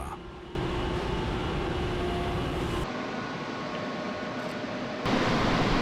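Steady din of car body assembly line machinery on the factory floor. Its character changes abruptly about half a second, three seconds and five seconds in.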